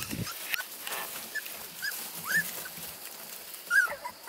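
Four-week-old beagle puppies whimpering: a few short high squeaks, the loudest near the end, over faint rustling of the wood shavings they are crawling on.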